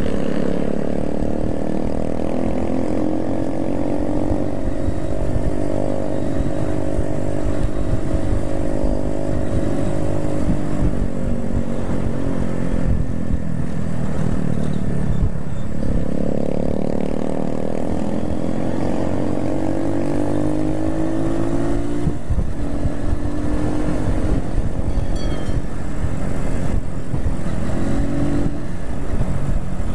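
Motorcycle engine running under way, its pitch climbing as it accelerates and dropping at gear changes, with wind rumble on the microphone.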